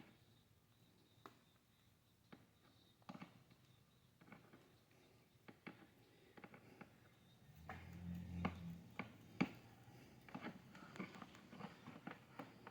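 Faint, scattered clicks and small rustles of hands untwisting and sorting the four twisted wire pairs of a Cat 6 cable, growing busier in the second half, with a brief low hum about eight seconds in.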